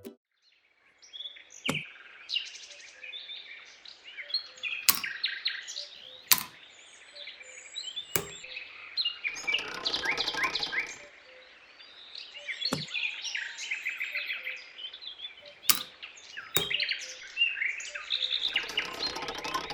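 Small birds chirping and twittering in quick runs, with a sharp click now and then, about seven in all.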